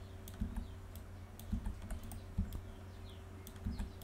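Computer keyboard and mouse clicks, scattered and irregular, at a low level over a faint steady hum.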